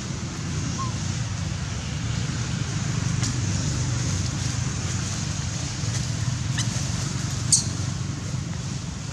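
Steady low outdoor background rumble. A few short high-pitched squeaks or chirps sound over it, the loudest about seven and a half seconds in.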